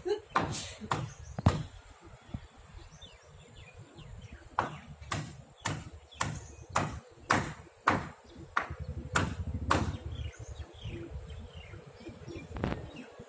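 Hammer blows on timber, about two a second, in two runs with a pause between, typical of nailing roof trusses. Birds chirp faintly in the pauses.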